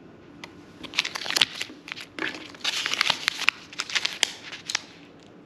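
Holographic foil gummy pouch crinkling as it is picked up and handled: a dense run of sharp crackles and rustles lasting about four seconds.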